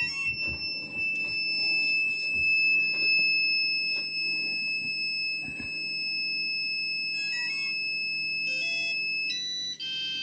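Electronic beeper sounding one steady high tone for about nine seconds, then a few short beep bursts and a quick run of stepped tones near the end, as the FPV drone's electronics are powered back up.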